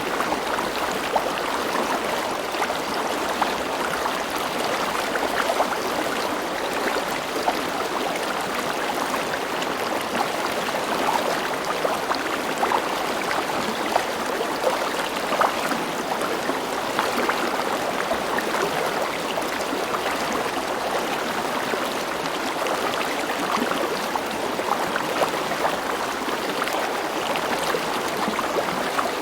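A river running over rocks: a steady rush of flowing water with constant small splashes and gurgles.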